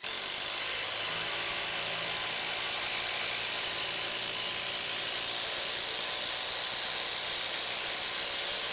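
Bosch IDH182 18-volt brushless impact driver hammering steadily as it drives an 8-inch TimberLOK structural screw down into stacked lumber, at one even level throughout.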